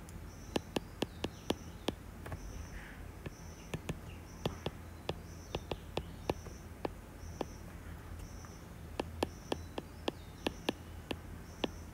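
Stylus tip tapping and clicking on an iPad's glass screen as equations are handwritten: sharp irregular ticks, several a second in places. Under it, a faint high chirp repeats about once or twice a second, cricket-like, over a low hum.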